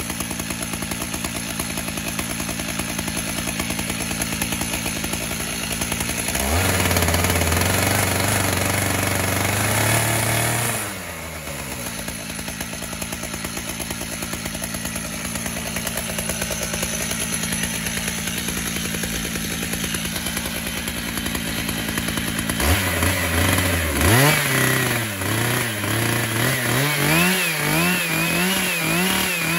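Two-stroke chainsaw, mounted on a chainsaw mill, running at idle with a steady rapid pulse. It speeds up for a few seconds around a quarter of the way in. Near the end it revs up and down unevenly.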